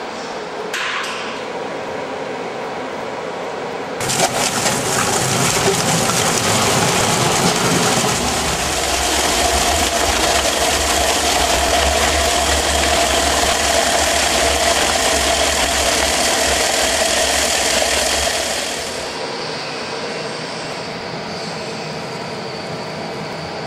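Industrial food cutter (GLASS VAS) with a rotating knife head, chopping peeled onions. A steady machine noise jumps suddenly to a much louder run about four seconds in, holds loud with a low rumble through the middle, then drops back to a lower steady hum a few seconds before the end.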